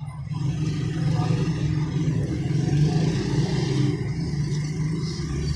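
A steady low rumble of a running engine or motor, starting suddenly.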